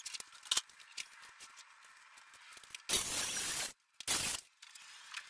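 A handheld power saw cutting through an MDF sheet in two short bursts, the first just under a second long and the second brief, each starting and stopping abruptly. Faint scattered taps and scrapes come before them.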